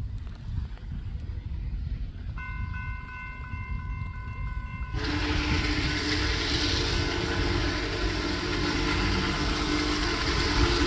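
Union Pacific 4014 Big Boy steam locomotive's whistle sounding a long, loud blast with a hiss of steam, starting about five seconds in over a low rumble. Just before it, a bell rings faintly at about two strikes a second.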